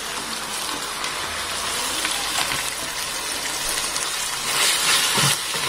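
Onion, green chilli and ginger-garlic paste masala sizzling in oil in a steel pot as chopped mint and coriander go in; the sizzle gets louder about four and a half seconds in.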